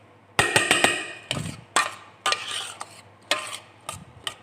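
Kitchen utensils and a pot clattering: a quick run of knocks and scrapes about half a second in, then single knocks at irregular spacing.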